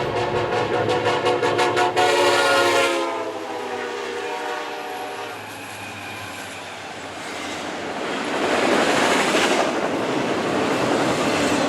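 Train passing: rapid clicking of wheels over rail joints, then a horn blast about two seconds in that drops slightly in pitch, followed by a steady rush of wheels on the rails that grows louder again near the end.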